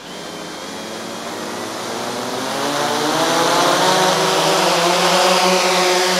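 Four-rotor quadcopter drone's propellers spinning up from a standstill: a motor whine that starts suddenly and climbs in pitch and loudness over about three seconds, then holds steady as the drone lifts off the floor.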